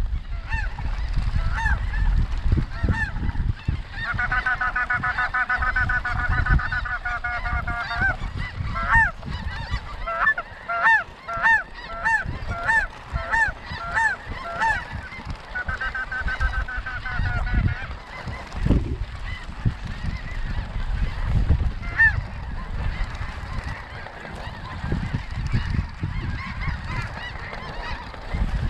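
Snow geese calling with high, yelping honks. A dense overlapping chorus comes a few seconds in, then a quick run of single calls, another short chorus, and fewer calls toward the end.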